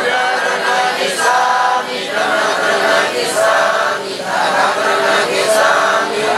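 Several voices singing together in a chant-like song, the notes held and then broken off in short phrases.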